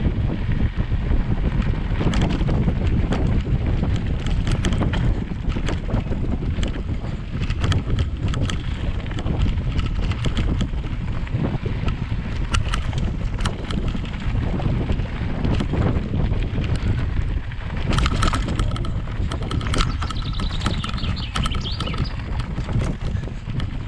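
Wind rumbling on the microphone of a camera riding along on a mountain bike down a dirt forest trail, with frequent clicks and rattles from the bike over the rough ground.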